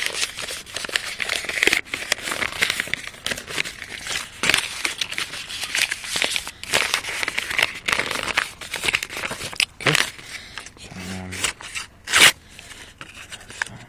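Shredded paper crinkling and tearing as a knife blade is drawn through it: a dense, uneven run of rustles and snips, with one sharper snap near the end.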